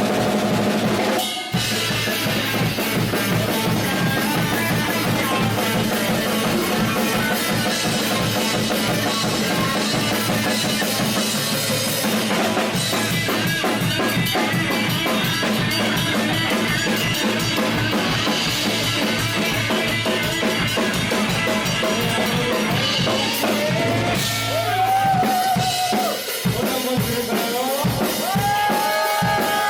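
Live band music driven by a drum kit, with kick and snare keeping a steady beat and a short break about a second and a half in. Toward the end a melodic line with sliding pitch comes in over the beat.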